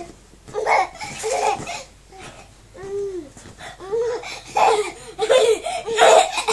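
A baby of about nine months laughing in repeated short bursts, coming faster in the second half.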